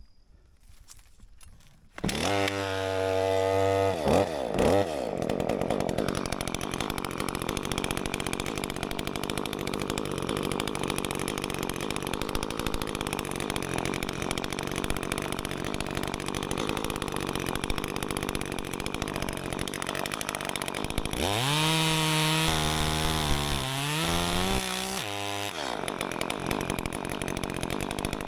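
Echo CS-355T top-handle two-stroke chainsaw comes in suddenly about two seconds in and revs, then runs under load cutting through a limb. Near the end it revs up and down again, its pitch rising and falling.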